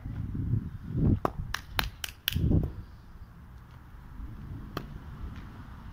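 A quick run of sharp clicks or knocks, about five in just over a second, mixed with low rumbling thumps, then one more click near the end.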